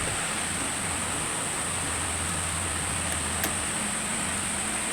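Steady hiss with a low hum underneath, and one faint click about three and a half seconds in.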